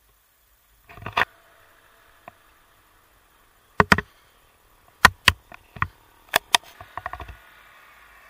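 Irregular sharp knocks and clicks from a camera rig on a bicycle being ridden, some in pairs and a quick cluster near the end, over a faint steady hiss.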